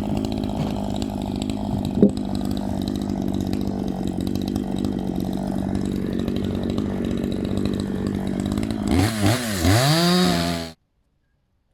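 Maruyama MCV5100S two-stroke chainsaw running at a steady pitch under load. Near the end its pitch swings up and down two or three times, and then the sound cuts off abruptly.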